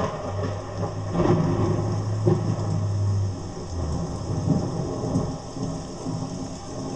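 Thunderstorm sound effect: rain with thunder rumbling and cracking, loudest in the first three seconds.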